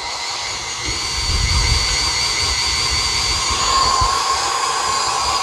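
KitchenAid stand mixer running, its motor giving a steady high whine over a low uneven rumble as the beater churns boiled potatoes in the bowl; it gets a little louder about a second in.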